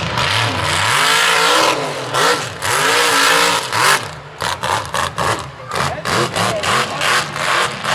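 Mud truck's engine revving hard as it drives through the bog, its pitch rising and falling. About halfway through it breaks into a rapid string of short surges, about three a second.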